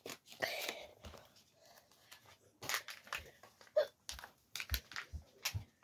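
Scattered light knocks, taps and rustles of a person moving about and handling things close to the phone, with a short rustling burst about half a second in.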